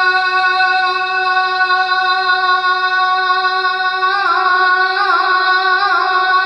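A man singing a devotional Urdu poem unaccompanied, holding the last vowel of the line as one long steady note. About four seconds in, the note breaks into wavering ornaments.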